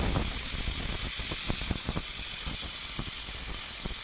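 Thick mutton curry simmering in an aluminium pot on a gas stove: a steady hiss with many small bubbling pops.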